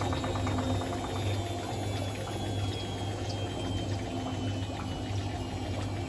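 Hotpoint Ultima WT741 washing machine slowing at the end of its spin: a thin motor whine falls slowly in pitch over a steady low hum, with water sounds inside the drum.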